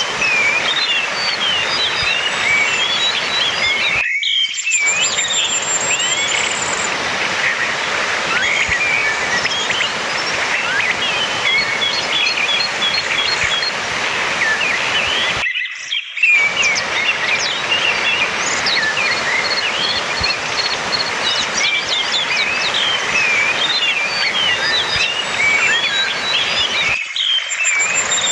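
Orange-headed thrush (anis merah) singing a fast, varied run of chirps and whistles over a steady rushing background noise. The background drops out briefly three times, about every 11 seconds, as the recording loops.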